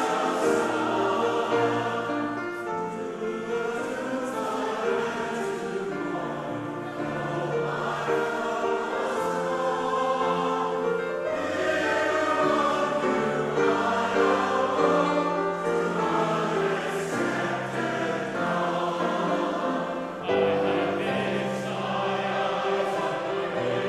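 Church choir singing a hymn in parts, with voices holding sustained notes in harmony over a low bass line.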